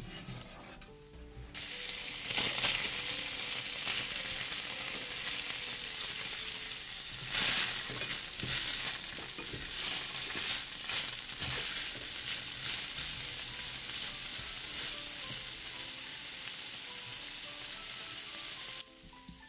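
Food sizzling and frying in hot oil in a pan, with stirring knocks and scrapes now and then. The sizzle starts suddenly about a second and a half in and cuts off abruptly near the end, with soft background music on either side.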